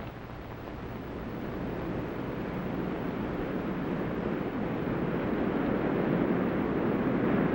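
Surf washing on a beach: a steady rushing noise that slowly swells louder.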